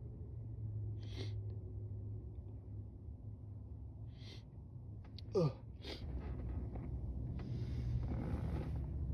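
A person with a head cold sneezing once, a short, loud, wet sneeze with a voiced downward slide about halfway through. Two sharp in-breaths come before it and noisy breathing follows.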